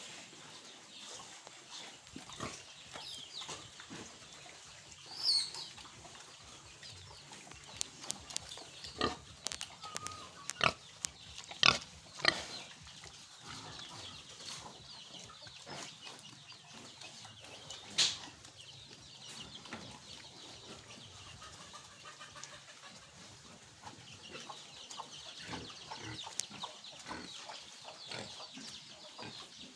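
Pigs vocalising, with chickens clucking. Several short, sharp loud sounds come close together about ten to twelve seconds in, and another about eighteen seconds in.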